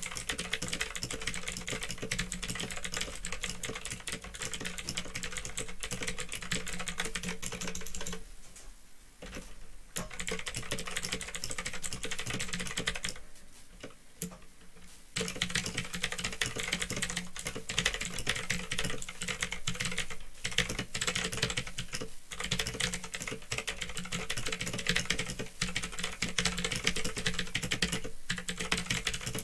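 Continuous typing on a Phantom Tecware 87 mechanical keyboard with clicky Otemu Blue switches, a fast run of key clicks that slows to a brief lull twice, about a third of the way in and again around halfway. A steady low hum runs underneath.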